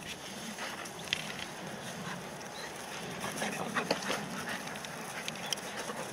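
Golden retrievers running and playing together, making scattered short dog sounds over a steady background hiss, busiest about three and a half to four seconds in.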